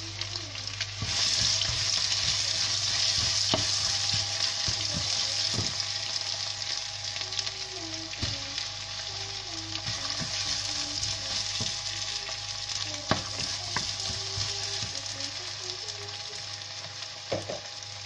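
Sliced red onions sizzling in hot mustard oil with whole spices in a nonstick wok, stirred with a wooden spoon that knocks against the pan now and then. The sizzle swells about a second in, then slowly eases.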